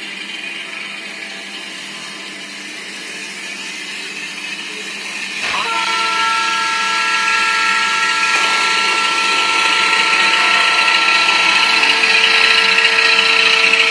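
HO-scale WDM2 model locomotive's Digitrax sound decoder running its WDM2 diesel engine sound over the hiss of the model rolling on the track. About five seconds in, the decoder's multi-tone WDM2 horn starts and is held as one long blast, growing louder to the end.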